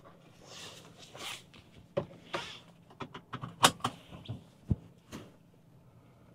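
Car seatbelt being pulled across and fastened: rustling of the webbing and a run of short clicks and knocks from about two seconds in, with a sharper knock shortly before the end.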